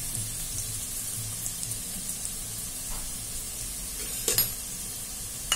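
Chopped carrots and green beans frying in oil in a non-stick pan on a low flame: a steady gentle sizzle, with two short sharp ticks in the last second and a half.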